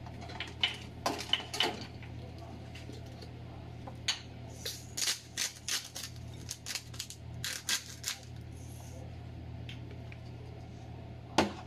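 Salt and pepper being dispensed over a salad in a glass bowl: a series of short, sharp clicks and taps in irregular clusters. One louder knock comes near the end, over a low steady hum.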